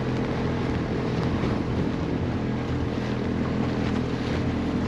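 A motorboat's engine running at a steady, unchanging hum, under a rush of wind on the microphone.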